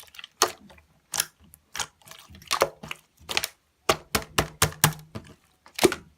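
A series of sharp clicks and taps at an uneven pace, about ten in six seconds, with a faint low hum underneath.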